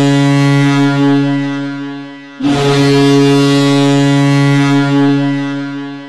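Ak Bars Kazan's arena goal horn, a deep ship-style air horn, sounding two long blasts at one steady pitch. The first blast stops about two seconds in and the second starts right after.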